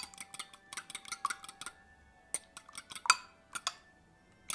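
A fork beating eggs in a small glass bowl: quick, uneven clinks of the tines against the glass, with a short pause a little before halfway and then more clinks.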